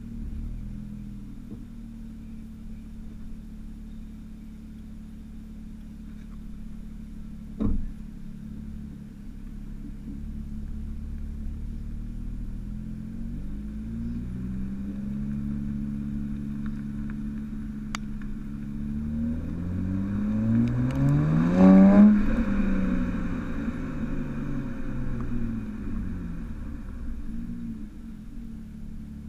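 Stock exhaust of a 2008 BMW 335i E92's twin-turbo 3.0-litre straight-six, heard at the tailpipe while driving. The engine note climbs steadily under acceleration to its loudest about 22 seconds in, then falls away as the car eases off. One sharp knock about 8 seconds in.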